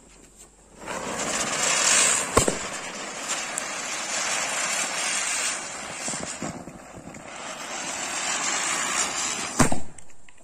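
Two chakri ground-spinner firecrackers hissing loudly as they spin and throw sparks; the hiss dips briefly past the middle and surges again. A sharp crack comes about two and a half seconds in, and a louder bang near the end.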